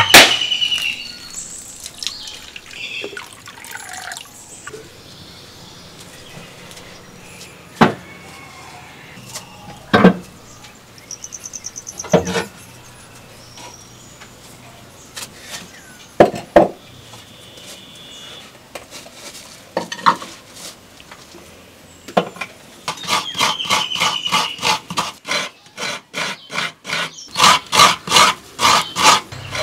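A coconut being grated on a scraper: a fast, even run of scraping strokes, about three to four a second, starting a little over 20 seconds in. Before that come a handful of separate sharp knocks, one right at the start, as the coconut is struck open with a knife.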